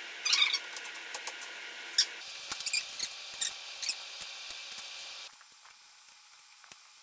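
Awning canvas and aluminium poles being handled, with scattered light clicks and knocks, the sharpest about two seconds in, over a steady hiss that stops about five seconds in.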